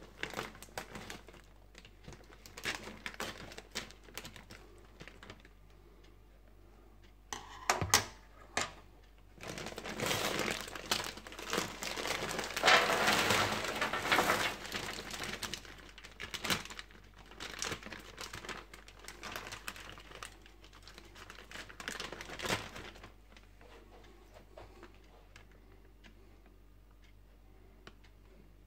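Scissors snipping a plastic bag of frozen food open, with the bag crinkling. Then frozen diced potatoes and sausage pour out and rattle onto a metal baking sheet in a dense rush for several seconds. A few scattered taps follow as the last pieces fall, and these stop a few seconds before the end.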